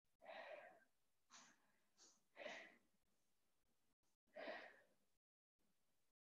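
Faint breathing: about five soft breaths in the first five seconds, the longest near the start and about four and a half seconds in, with near silence between.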